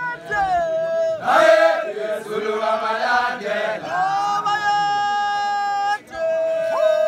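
Zulu men's group chant: voices holding long sung notes, sliding in pitch between them, with a brief pause about six seconds in.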